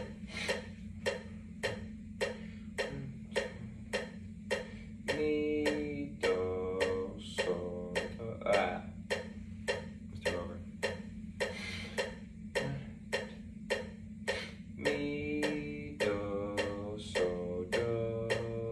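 A metronome ticking steadily about twice a second over a low steady hum, with two short phrases of held pitched notes, about five seconds in and again about fifteen seconds in.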